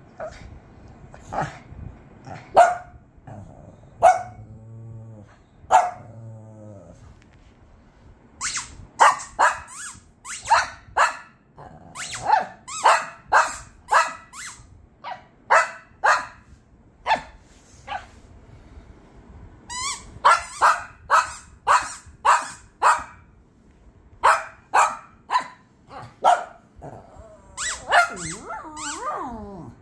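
Small Shih Tzu-type dogs barking excitedly in quick runs of short, sharp barks at a hand moving under a blanket. There is a drawn-out growl about five seconds in, and a wavering, whiny yelp near the end.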